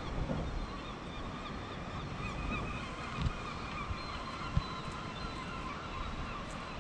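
Many gulls calling, their cries overlapping throughout, over a low, gusty wind rumble on the microphone, with two short thumps a little past the midpoint.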